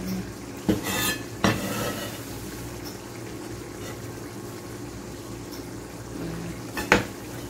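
Mapo tofu sauce simmering in a stainless steel wok over a gas burner, with a steady low hum underneath. A few sharp clicks in the first second and a half and one more near the end.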